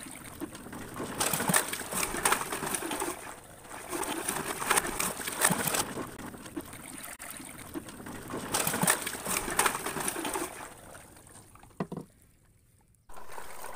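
Water splashing and sloshing in several louder bursts as toy trucks and trailers tumble off a plank into shallow water, with a dove cooing in the background. Near the end the sound drops almost to quiet for about a second.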